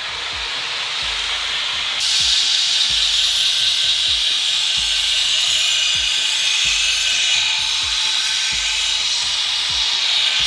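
A machete's steel blade being sharpened on a power grinder: a steady, loud grinding hiss that gets louder about two seconds in as the edge is pressed to the abrasive.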